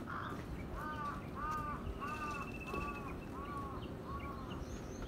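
Crow cawing, a run of about six harsh caws a little over half a second apart, over a low background rumble.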